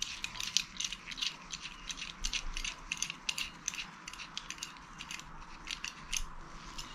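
Rapid, irregular small metallic clicks of a bolt being turned by hand into a loose metal roof-rail speed nut, the threads catching and the nut rattling on the bolt.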